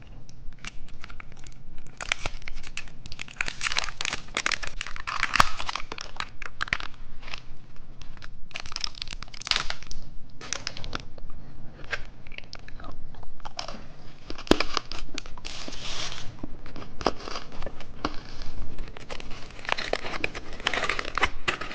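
Plastic candy wrapper crinkling and tearing as it is opened and handled, a steady run of crackles with sharp clicks.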